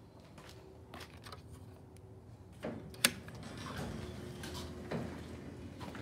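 Sectional garage door closing under its electric opener. A few faint knocks come first. About two and a half seconds in the opener starts, with a sharp click, then a steady mechanical hum and rattle as the door runs down its tracks.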